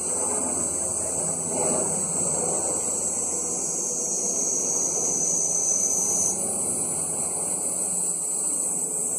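Cicadas buzzing in a steady high-pitched chorus, one of the high buzzes cutting off about six seconds in, over the steady low drone of a helicopter.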